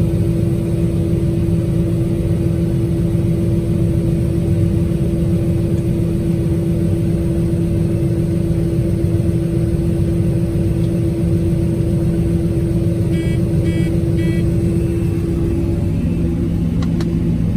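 Combine harvester running steadily under load while harvesting corn, a constant drone with a steady hum. Near the end come three short electronic beeps from the machine's warning system, as the grain tank has filled.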